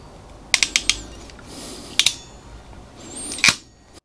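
Ratcheting wire crimper clicking as it is squeezed shut on a heat-shrink butt splice: a quick run of four clicks about half a second in, then single sharp clicks near two seconds and near the end.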